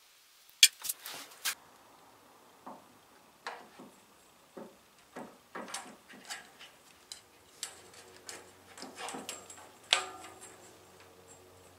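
Hand tools and steel parts clicking and clinking in an irregular run of taps and knocks as the lower blade guide assembly of a cast-iron bandsaw is worked on. The sharpest knocks come just after the start and about ten seconds in, and the second one rings briefly like struck metal.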